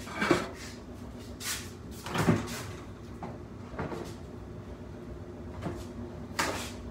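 Kitchen cupboard being opened and closed and dishes handled: a run of scattered knocks and clunks, the loudest about two seconds in.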